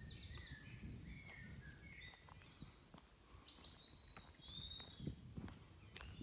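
Woodland birdsong: a rapid high trill in the first second, then scattered chirps and short whistles from several birds. Soft footsteps on the lane come in now and then underneath.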